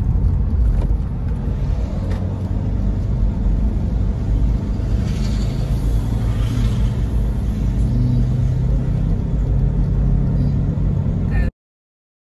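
Steady low road and engine rumble of a car being driven, heard from inside the cabin. It cuts off abruptly about a second before the end.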